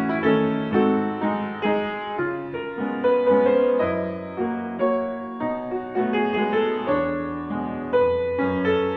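Slow, gentle piano music, with notes and chords sounding one after another.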